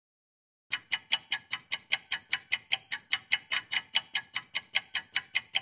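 Rapid, evenly spaced clicking sound effect, about five sharp clicks a second, starting under a second in.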